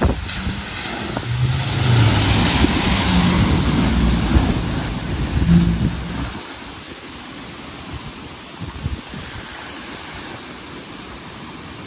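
A car's engine revving as it drives through deep floodwater, with water splashing and surging around it. About six seconds in the engine drops away, leaving a steady rush of flowing water.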